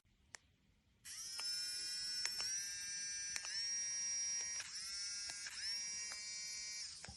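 Small high-speed electric nail drill motor whining. It starts about a second in, dips briefly in pitch and recovers about four times with a few faint clicks, then stops just before the end.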